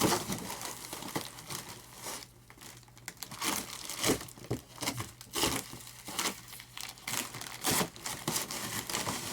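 Packaging crinkling and rustling in irregular bursts as it is handled and lifted out of a box, with a short lull about two seconds in.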